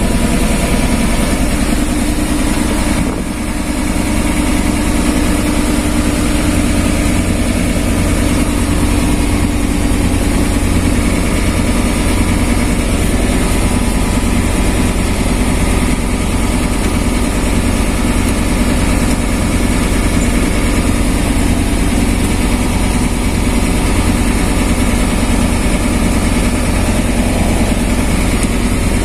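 Mercedes-Benz 1417 truck's diesel engine idling steadily during a warm-up run after standing unused for a long time, heard from inside the cab.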